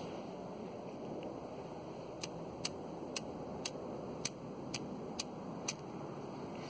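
Spark-Lite flint-wheel fire starter struck over and over, eight sharp clicks about two a second starting about two seconds in, throwing sparks to relight jute and cotton tinder. A steady low hiss of background noise sits under it.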